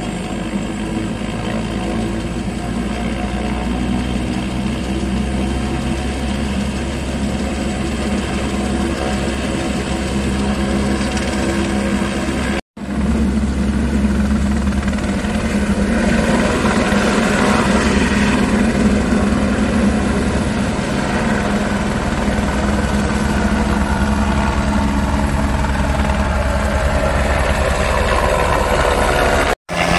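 Light single-engine helicopter running on the pad with its turbine whine and rotor chop, then getting louder as it lifts off and climbs. The sound cuts out briefly twice, near the middle and near the end.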